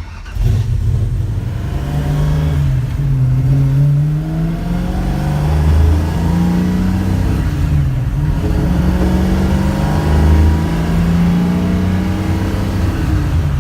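1968 Ford Mustang's engine accelerating through the gears of its manual transmission: the engine note climbs with revs, drops at a gear change twice (about three and eight seconds in), then climbs again.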